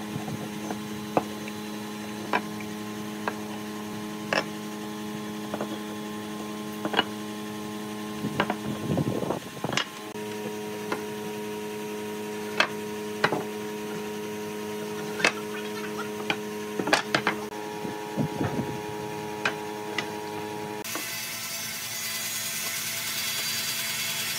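A steady electrical hum with sharp clicks every second or two, and twice a short scratchy rasp of a wooden marking gauge drawn along a pine board. Near the end the hum gives way to a hiss.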